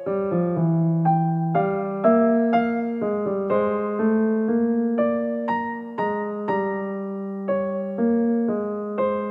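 Background music: a gentle piano melody, its notes struck about two a second and each left to ring and fade.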